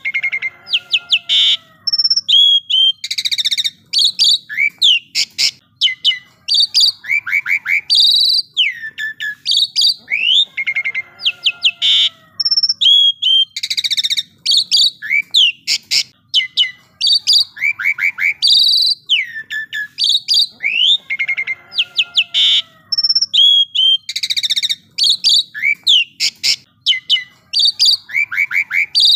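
Asian pied starling (jalak suren) singing a busy song of sharp chirps, quick rising and falling whistles and short rattles, with hardly a pause. The same run of phrases comes round again about every ten seconds, as in a looped masteran training recording.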